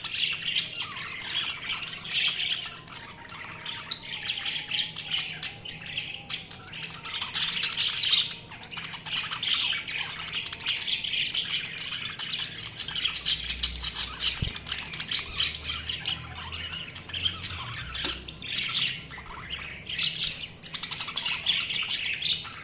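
Budgerigars chirping and squawking without pause, many short calls overlapping in a busy chatter.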